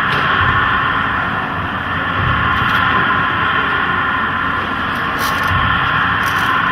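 Steady, loud, hiss-like droning noise from a dance performance's electronic soundscape, with soft low thuds every couple of seconds.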